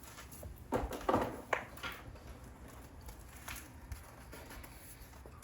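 Handling noises as the new faceplate is picked up: a few short rustles and knocks about a second in, then faint scattered taps over a low room hum.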